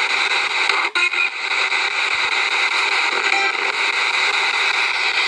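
Spirit box, a radio that sweeps rapidly through stations, giving out a loud steady static hiss. It cuts out briefly about a second in, and a few faint chirps of stray signal break through.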